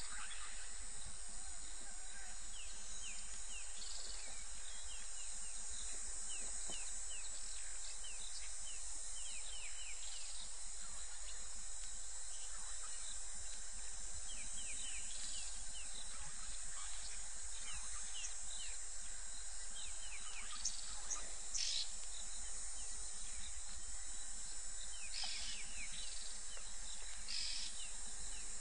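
African bush ambience: small birds chirping in short falling notes, scattered throughout, over a steady high-pitched insect drone and a faint low electrical hum.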